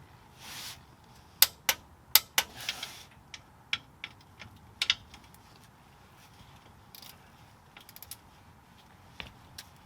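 Hand tools on bolts: a ratchet wrench clicking and metal tools clinking in a string of sharp, irregular clicks, thickest in the first few seconds and sparser later, with a couple of short scraping rustles.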